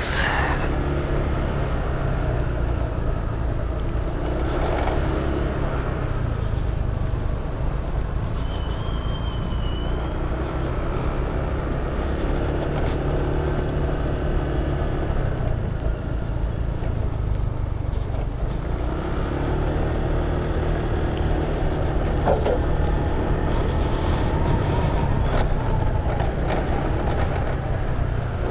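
Motor scooter engine running steadily while riding, with wind and road noise, heard from the rider's helmet camera.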